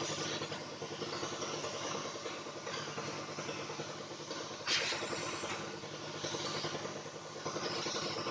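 A small engine or motor running steadily with a fast, even pulse, with a short loud hiss about five seconds in.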